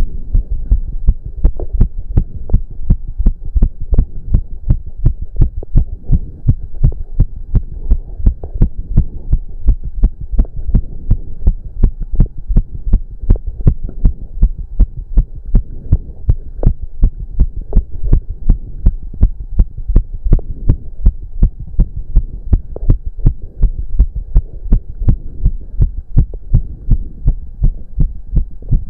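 A man's heart beating fast and regularly, racing from cardio exercise, with a faint steady hum beneath the beats.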